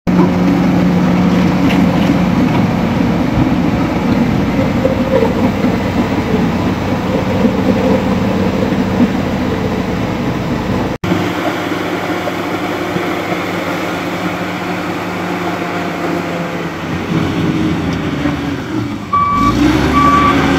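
Komatsu D85E bulldozer's diesel engine running steadily under working load, with a brief break in the sound about halfway. Near the end a reversing alarm starts beeping at an even pace.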